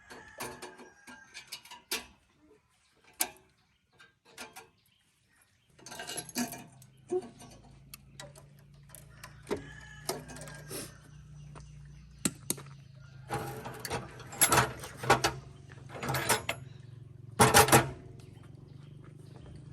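Metal tools and parts clinking and knocking during hand repair work on a tractor engine, with a cluster of louder clanks near the end. A steady low hum starts about six seconds in.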